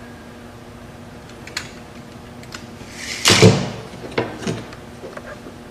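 A steel tape measure's blade retracting into its case: a short rattling slide ending in a clack about three seconds in. Then two light knocks as hands nudge the wooden stair jig against the steel framing square.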